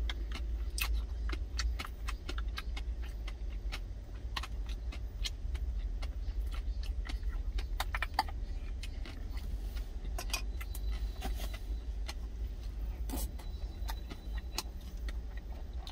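Wooden spoon and wooden chopsticks clicking and scraping against plastic and stainless steel food containers while eating, in scattered short taps. A steady low rumble sits underneath inside the truck cab.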